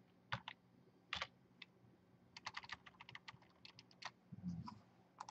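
Faint clicking of a computer keyboard being typed on: a few scattered keystrokes, then a quick run of them in the middle, and a short low hum near the end.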